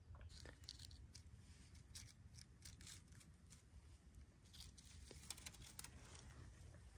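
Near silence, with faint scattered ticks and rustles of hands handling a wooden arrow and bow among dry grass stems.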